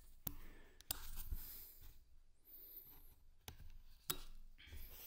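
Quiet scuffing and rustling from a person moving about in a small tiled room, broken by several sharp clicks or taps.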